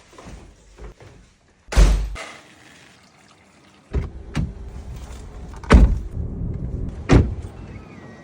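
Three loud thuds, about two, six and seven seconds in, with a few lighter knocks between them. A steady low rumble of background noise comes in about four seconds in.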